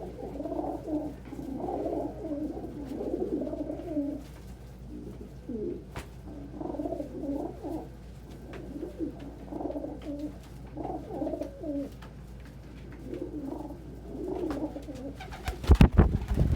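Several domestic pigeons cooing over one another in a loft, with repeated low, wavering coos. Just before the end comes a short burst of loud, close thumps.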